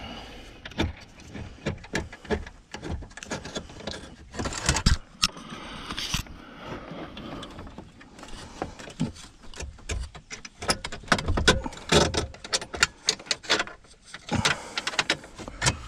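Hand ratchet clicking in irregular runs, with metal clinks and knocks from the socket and bolt, as a long bolt is worked loose under a car's dashboard.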